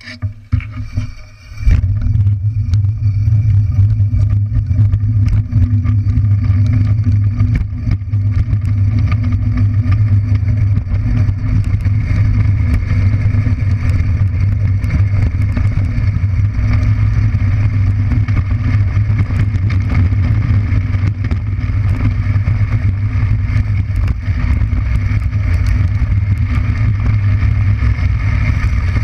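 Drift trike rolling fast down a paved road: a steady low rumble from its hard plastic-sleeved rear wheels on the asphalt, mixed with wind buffeting the trike-mounted microphone. The rumble starts suddenly a couple of seconds in and holds steady, with scattered small rattles and clicks.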